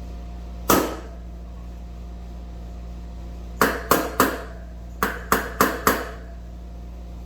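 Hammer blows on the old bearing, used as a driver to tap a new front wheel bearing into a Suzuki DR-Z400SM wheel hub. There is a single strike, then a quick group of three, then a group of four.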